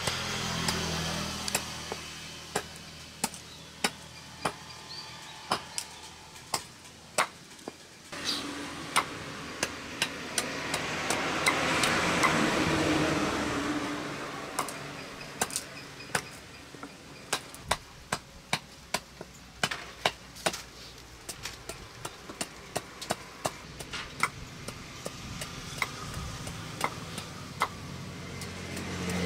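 A knife blade chopping into the end of a log stood upright on a wooden block: a run of sharp knocks at an irregular one to three a second. A broad background noise swells and fades in the middle.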